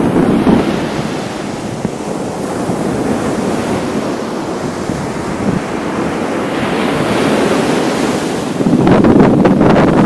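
Small waves breaking and washing up over a sandy shore, the foam hissing across the sand, with wind buffeting the microphone, heavier near the end.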